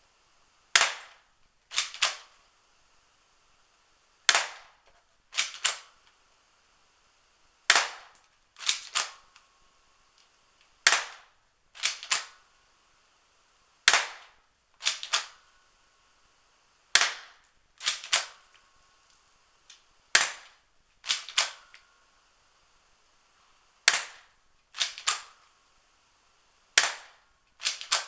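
Airsoft H&K USP replica pistol shooting 6mm BBs: sharp cracks in repeated groups of three, one crack followed about a second later by two close together, every three seconds or so.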